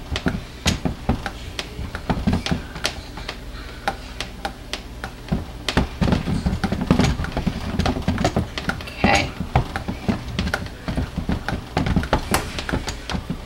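A stick blender stirred through thick soap batter in a plastic tub: irregular clacks and taps as the blender head knocks against the tub's sides and bottom, with no steady motor whine.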